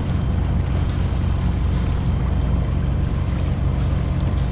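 Water rushing and churning in a sailboat's wake around the stern and the self-steering rudder, under steady wind buffeting on the microphone.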